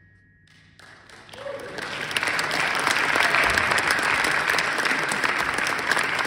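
Audience applause in a concert hall. It starts about a second in, out of near silence as the band's final chord dies away, and swells within another second into steady, loud clapping.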